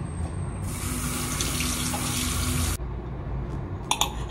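Kitchen tap running for about two seconds, starting and shutting off abruptly. A few light clicks of a knife on a plate come near the end.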